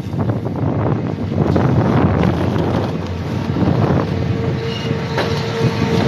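Chairlift machinery rumbling and clattering at the unloading station, mixed with wind on the microphone. A steady tone comes in about four seconds in.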